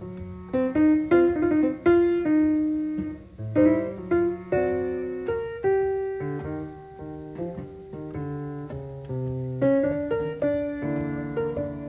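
Background piano music: a melody of struck notes, each fading away, over slower bass notes.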